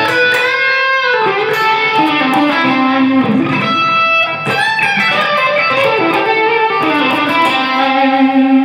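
Electric guitar played through a Valeton GP-200 multi-effects lead preset: a single-note lead line with held, sustained notes and pitch bends.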